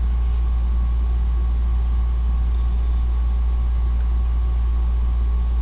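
A steady low hum, unchanging throughout, with nothing else heard.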